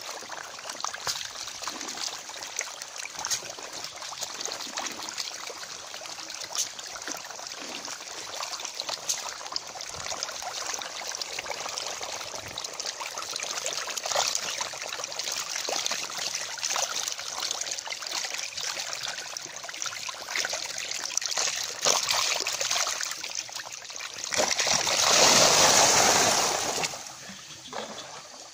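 A crowded school of Nile tilapia feeding at the water's surface, a steady patter of many small splashes and slurps. About 24 seconds in, the splashing swells into a much louder rush for two or three seconds, then dies down as the fish scatter.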